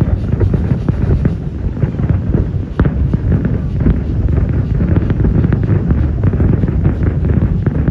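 Fireworks show at its climax: a dense, continuous barrage of aerial shells bursting one after another, many bangs in quick succession over a steady low rumble, with wind buffeting the microphone.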